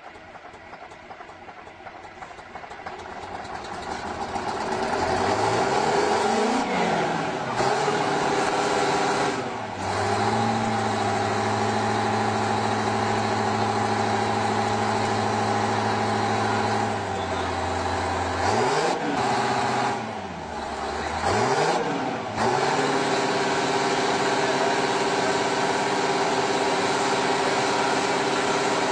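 The diesel engine of a huge four-wheel-drive tractor builds up over the first five seconds and then runs loud and steady. Its revs rise and fall about six seconds in and again, several times, between about eighteen and twenty-two seconds.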